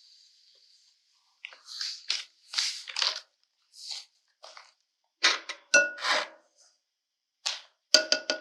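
Kitchen handling noises at a mixing bowl: a string of short scrapes and rustles starting about a second and a half in, with a light ringing clink around the middle, as sugar and butter are worked in before the mixer goes on.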